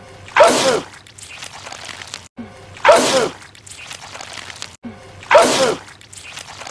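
A man sneezing loudly, the same sneeze repeated three times about two and a half seconds apart, each one a sharp burst that falls in pitch. A brief gap of silence comes just before each, where the clip loops.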